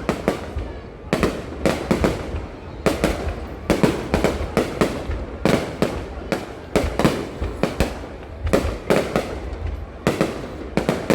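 Fireworks going off: an irregular series of sharp bangs in quick clusters, about one cluster a second, each bang with a short echoing tail, over a steady low rumble.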